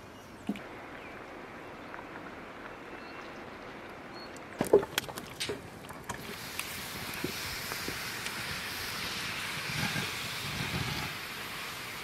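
A heavy lidded pan set down on a metal tray with a few sharp metal clanks, followed by a steady sizzling hiss as the hot pan steams.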